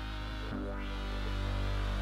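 Background music with sustained chords, which change about half a second in.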